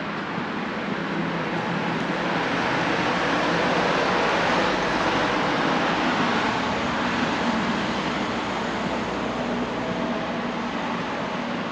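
A vehicle running: a steady rumble and rush of noise that grows louder toward the middle and eases off again.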